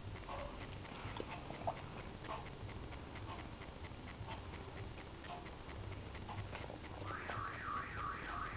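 Pug snorting and snuffling in short, repeated snorts, then a warbling high-pitched sound starting about seven seconds in.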